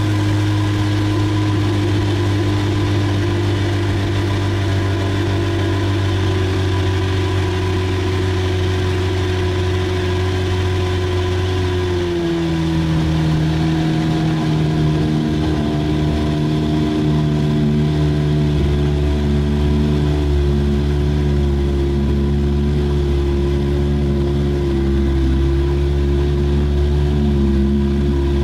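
Boat's outboard motor running steadily under way. About twelve seconds in, its note steps down slightly and holds at the new pitch.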